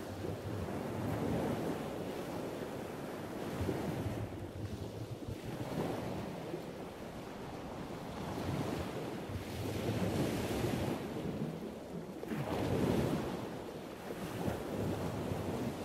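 Ocean waves washing, a rushing that swells and eases every few seconds.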